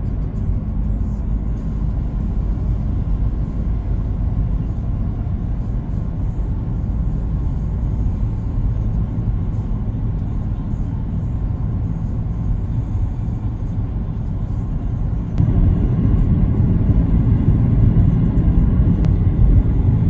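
Steady road and wind noise of a moving car, heard from inside, a low rumble that grows louder about fifteen seconds in.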